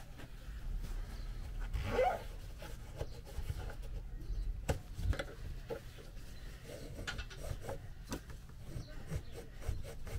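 Cloth rag rubbing inside a wiper motor's metal gear housing as old grease is wiped out, with scattered light clicks and knocks against the part.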